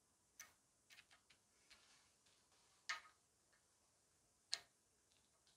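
Faint metal-on-metal clicks and taps as a thin plate and an end cap are set by hand onto an air hammer's cylinder housing. The two sharpest clicks come about three and four and a half seconds in.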